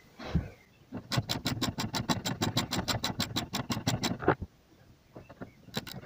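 Ratchet wrench clicking rapidly, about eight clicks a second, in two runs with a short pause between them, as a loosened engine-mount bolt is wound in. The mount had been held by a single bolt and had let the engine sag.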